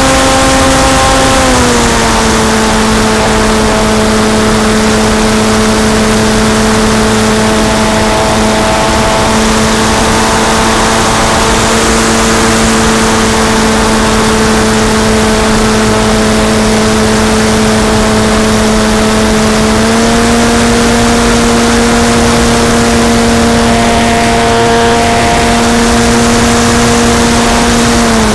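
RC model airplane's motor and propeller heard from onboard, a steady drone with wind rushing over the microphone. The pitch steps down about a second and a half in, rises slightly near the two-thirds mark, and drops again at the end as the throttle changes.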